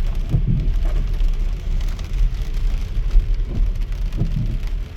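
Rain hitting a car as it drives through traffic, over the steady low rumble of the car on the wet road.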